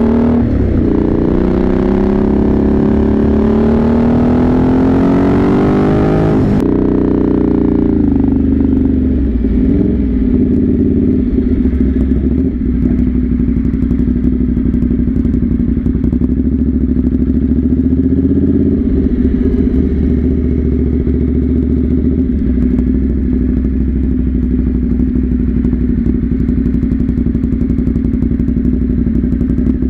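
Motorcycle engine accelerating, its note rising steadily for about six seconds, then dropping suddenly as the throttle comes off, then running at a steady cruise.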